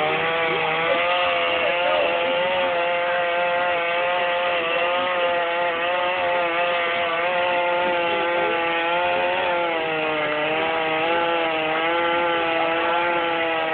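Chainsaw engine running at high revs, its pitch held nearly steady with slight wavering.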